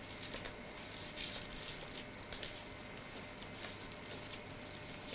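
Faint, scattered rustling and light crinkling of an LP record sleeve being handled as a vinyl record is slid back into it, over a steady hiss from the Video8 tape recording.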